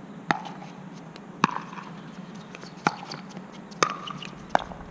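Pickleball rally: solid paddles hitting a hard plastic ball back and forth, five sharp pocks about a second apart.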